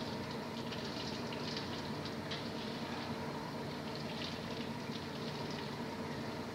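Water running from a sink tap and splashing as a man washes his face, over a steady hum.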